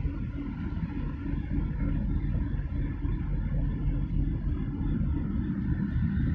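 Steady low rumble of a loaded container ship passing close by under way, mixed with wind on the microphone.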